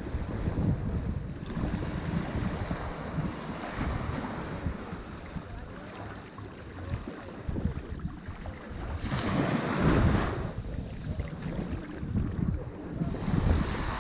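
Ocean waves breaking and washing on the shore, the surf swelling and easing, with one bigger wave crashing about nine seconds in. Wind buffets the microphone with a low rumble.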